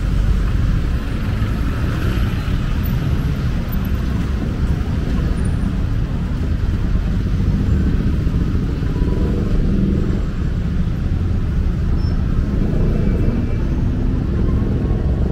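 Steady rumble of road traffic on a city street, even and unbroken, with a light haze of street noise above it.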